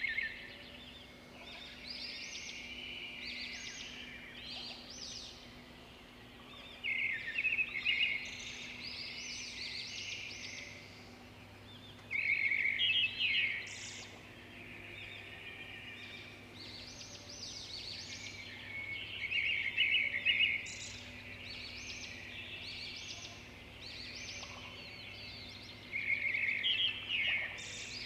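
Birds chirping and twittering in rapid bursts that swell every several seconds, over a faint steady low hum.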